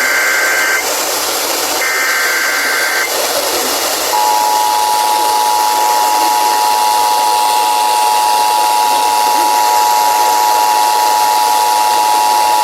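Emergency Alert System transmission: two short SAME header data bursts, each about a second long, at the start and about two seconds in. Then, from about four seconds in, the steady two-tone EAS attention signal sounds over radio hiss, marking the start of a new warning message.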